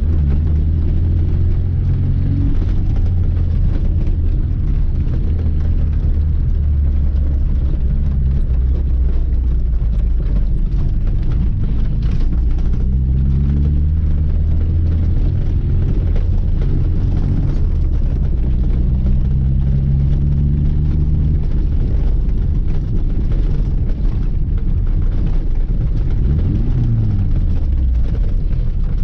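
Lada 2106's four-cylinder engine pulling the car along with a deep, steady rumble. Its pitch climbs a few times as it speeds up, then dips and rises again near the end.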